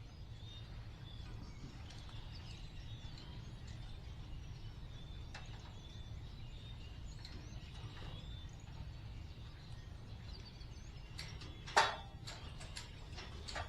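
Outdoor farm ambience: a steady low rumble with small birds chirping on and off. One sharp click about twelve seconds in and a few lighter clicks near the end.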